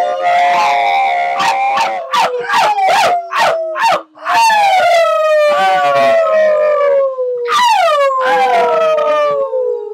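Several people howling together in long, wavering wails that slide slowly down in pitch, broken by a run of short yelps a couple of seconds in.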